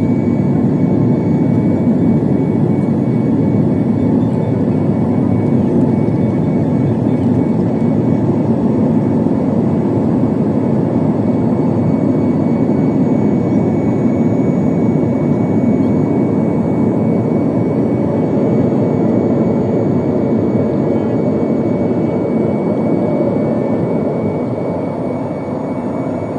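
Boeing 737 jet engines heard from inside the passenger cabin: a steady, loud, deep rumble that eases slightly near the end.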